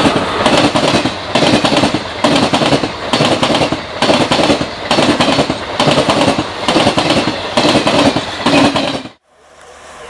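Long passenger express train running past at speed: a continuous rumble with its wheels clacking over rail joints in a steady beat of about three clacks every two seconds. The sound cuts off abruptly about nine seconds in, and a fainter sound then begins to rise.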